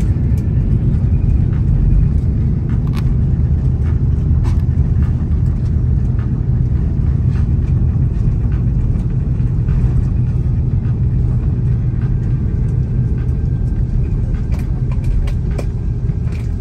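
Cabin noise of an Airbus A330-300 rolling out on the runway just after landing, with its ground spoilers up: a loud, steady, low rumble of the engines and tyres, with a few sharp clicks from the cabin. The rumble eases slightly near the end as the aircraft slows.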